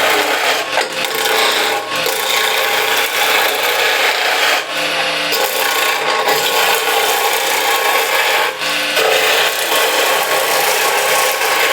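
A skew chisel cutting a wooden spindle blank spinning on a lathe at about 1800 RPM: a continuous shearing, rasping cut, broken several times by brief pauses as the tool lifts off the wood, as the blank is brought to round.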